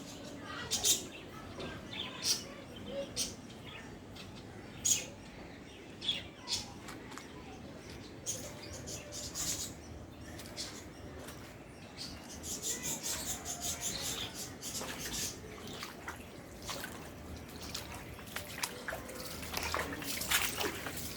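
Birds chirping on and off in short, high chirps, busier in the middle and again near the end.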